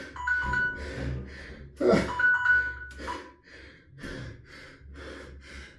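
Electronic interval timer beeping in short runs of two-tone beeps near the start and again about two seconds in, marking the end of an air-bike sprint interval. A loud exhausted groan comes about two seconds in, and then heavy rhythmic panting at about two breaths a second.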